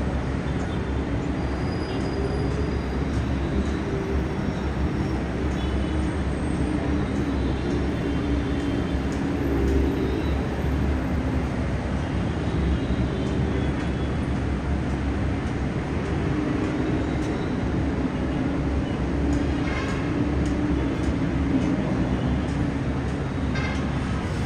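Steady city traffic noise: a constant rumble of many vehicles on a busy road, with faint engine tones rising and falling in the mix.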